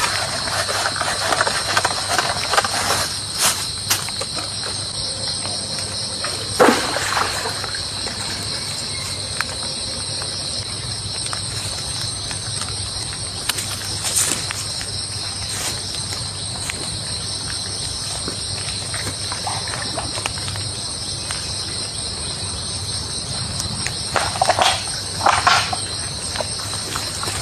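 Steady insect chorus, a continuous high trilling, with scattered knocks and rustles: the loudest is a sharp knock about seven seconds in, and a few more come close together near the end.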